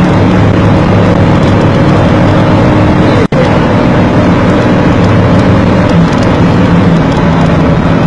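Steady vehicle engine drone and road noise, loud and unbroken, picked up by a dash cam, with a brief cut-out in the audio a little over three seconds in.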